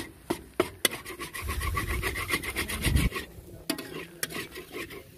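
Metal spatula scraping and stirring thick halwa in a black iron karahi: a quick run of rasping scrapes of metal on iron, thickest in the first half, then a few separate strokes.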